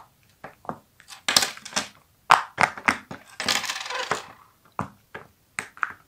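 Silicone pop-it fidget toy, a cupcake-shaped mini keychain, having its bubbles pressed in one after another by a finger: a string of quick, irregular pops, about two or three a second, with a brief rustle about three and a half seconds in.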